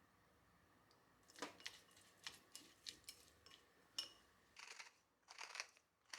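Faint kitchen handling sounds: a string of light clicks and small knocks of utensils or dishes, with a few short soft swishes, starting after a quiet first second or so.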